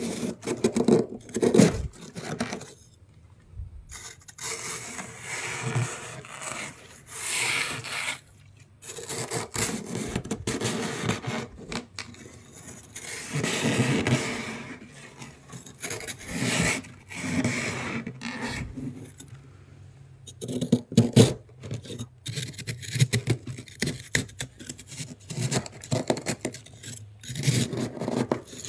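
Thick, powdery freezer frost being scraped and dug loose with a thin stick, in irregular rasping strokes broken by short pauses.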